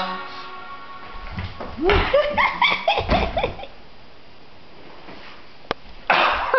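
Small dog yipping in a quick run of short, high, arching calls about two seconds in, over a couple of dull low thumps.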